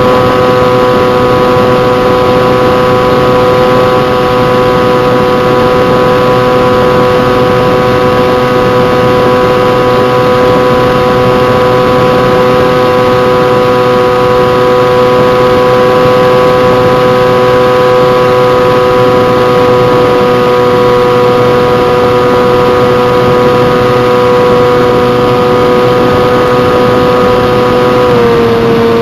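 Bixler RC plane's electric motor and propeller whining at a steady pitch in flight, over a hiss of rushing air. The pitch drops slightly near the end.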